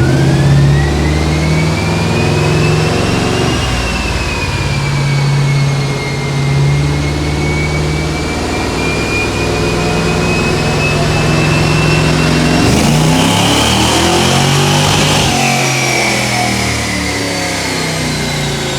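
Car engine run hard on a chassis dyno, with a high whine that climbs with engine speed, dips briefly about four seconds in, climbs again, and falls away over the last few seconds. A hiss rises over it from about thirteen to fifteen seconds in.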